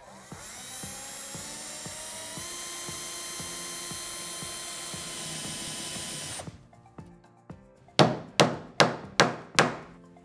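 Cordless drill with a wood bit boring a shallow hole in a wooden lath for a small magnet: the motor runs up over the first two seconds, holds steady, then stops after about six seconds. Near the end comes a quick row of about six sharp knocks, roughly three a second.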